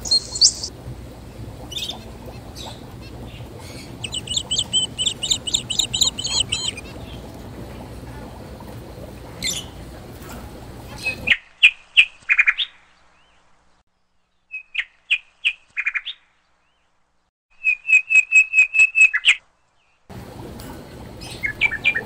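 Budgerigars chirping, with a warbling run of chatter, over steady background noise. After a cut about eleven seconds in, zebra finches give several quick runs of short, repeated calls with silent gaps between them.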